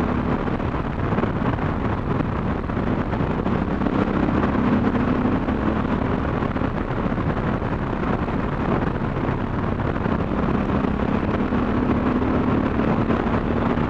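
Motorcycle engine running at steady road speed, mixed with wind rushing over the microphone. The engine note swells a little about four seconds in and again in the last few seconds.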